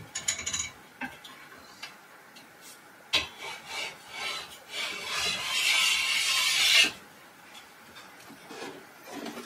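Sliding metal loft ladder being pulled down by hand: a few knocks and clanks, then a long scrape of about two seconds as the sections slide out, stopping abruptly.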